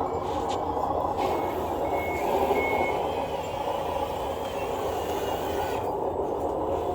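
Reversing alarm on a radio-controlled scale construction vehicle: short high beeps repeating a little faster than once a second, stopping about three seconds in, over a steady mechanical noise.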